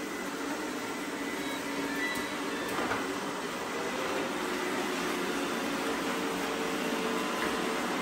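Several robot vacuums running together, their suction fans and brushes whirring steadily and growing slightly louder as more are switched on, with a couple of short electronic beeps.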